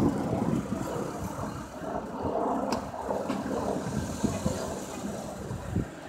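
Low, uneven rumble of road traffic, with a sharp click a little under three seconds in.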